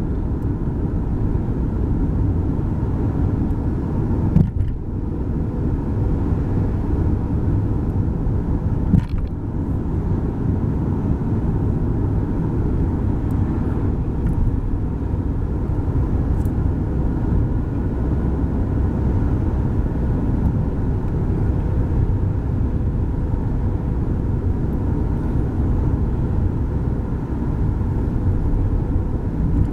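A car driving, heard from inside the cabin: steady low engine and tyre noise from the road. Two brief knocks come about four and nine seconds in.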